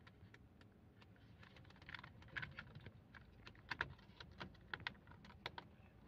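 Faint, scattered small clicks and taps of fingers handling the plastic housing and latches of a steering-column clock spring (spiral cable).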